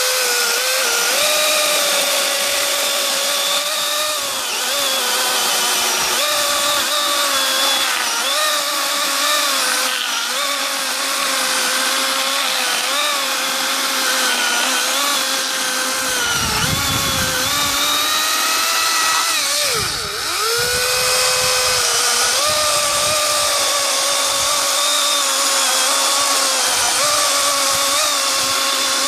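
Greenworks 80V brushless cordless chainsaw running continuously as it cuts through a log. Its electric motor whine sags in pitch each time the chain bites into the wood, most deeply about twenty seconds in.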